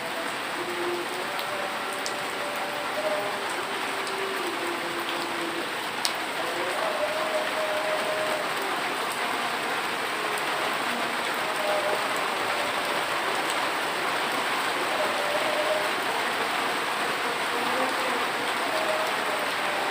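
Steady rain falling, an even dense hiss of drops on surfaces, with faint wavering tones underneath and one sharp tick about six seconds in.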